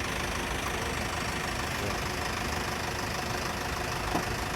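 Steady roar of a large waterfall's falling water, an even rushing noise with no breaks.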